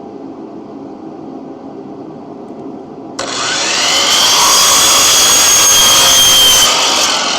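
A woodworking power tool switches on about three seconds in and runs at full speed, a high steady whine over a loud hiss, then starts to wind down near the end. Before it a steady low hum is heard.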